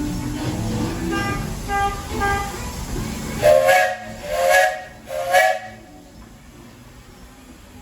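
Buckeye three-chime steam whistle sounding a chord in short blasts: three faint short toots, then three loud short blasts about half a second each, starting about three and a half seconds in.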